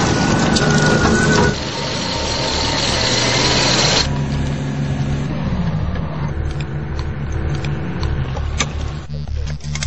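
Engines of tracked military vehicles running steadily. The sound changes abruptly about one and a half and four seconds in, as the shots cut from one vehicle to another.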